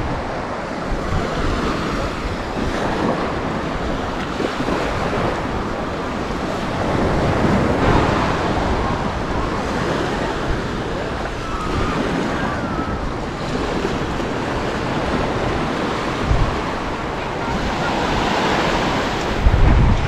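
Sea waves washing ashore in steady surf, mixed with gusty wind buffeting the microphone, with stronger low gusts near the end.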